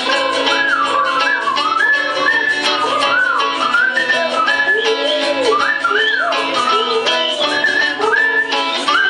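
Live band strumming a steady guitar rhythm under a clutter of overlapping, sliding bird-like whistles and warbles, a mock cacophony of birds chattering.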